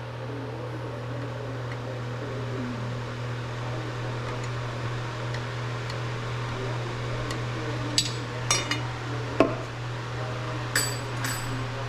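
Wrench and metal brake parts clinking against each other about five or six times in the second half, sharp clinks with a short metallic ring, as a brake line fitting and wheel cylinder are worked loose. A steady low hum runs underneath.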